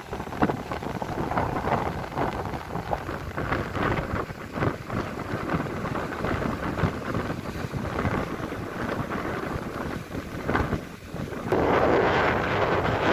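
Gusty wind buffeting the microphone in uneven gusts. Near the end a steadier rush of waves breaking on rocks joins it.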